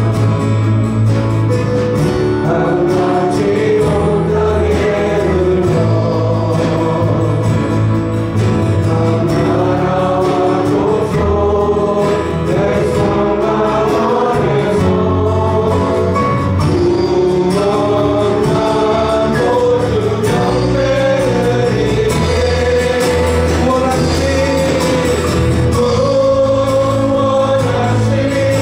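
Live worship music: a praise team singing a Korean hymn together over acoustic guitar and a band, held at a steady level.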